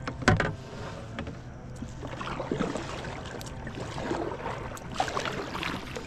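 Kayak paddle strokes splashing and dripping in the water, preceded by a sharp knock against the kayak about a third of a second in.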